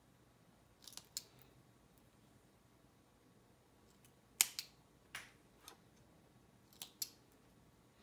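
Faint, sharp snips of a small blade cutting through sewing-thread stitches as a dress strap's seam is unpicked: about eight short snips at irregular intervals, several in quick pairs.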